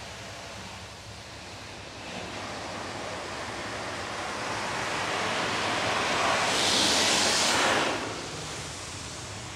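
Water spray from a Belanger Saber touchless car wash hitting the car, heard from inside the cabin: a rushing hiss that builds and is loudest about seven seconds in, then drops off.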